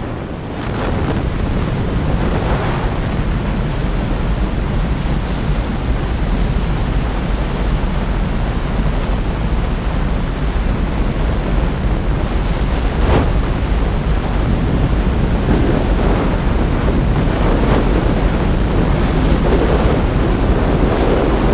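Freefall wind rushing over a skydiver's camera microphone: a loud, steady buffeting rush. A brief sharp click cuts through it about two-thirds of the way in.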